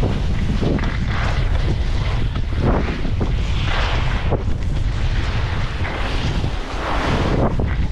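Steady wind rumble on the microphone at skiing speed, with the hiss and scrape of skis carving packed snow surging up several times with the turns.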